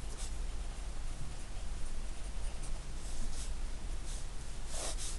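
Pencil scratching on paper while words are written by hand, in short strokes with pauses between and a few louder strokes near the end.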